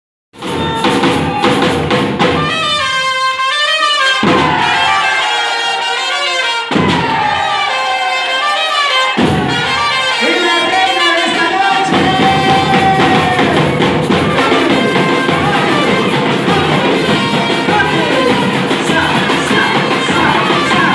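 Batucada, Brazilian samba drumming, played as music with a pitched melody and voices over the drums. It starts about half a second in.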